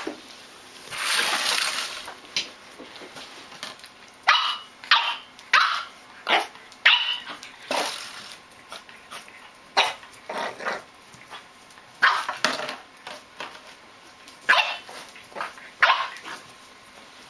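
French bulldog puppy barking in short yaps, about a dozen in irregular bunches, as it plays at a plastic water bottle, with a rustling noise about a second in.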